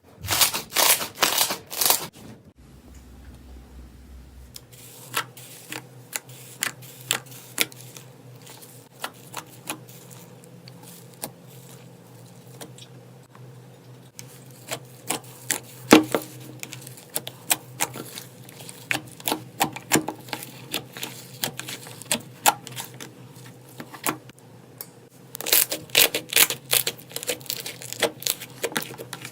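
Slime being squeezed and pressed by hand, giving a run of crisp clicks and pops. The clicks come in quick clusters in the first two seconds and again near the end, with scattered single pops between.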